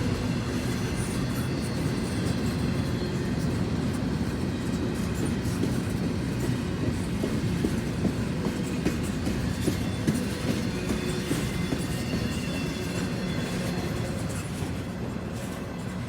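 Cars of a CSX intermodal freight train rolling slowly past as a steady rumble, with wheels clicking over rail joints and a faint thin wheel squeal.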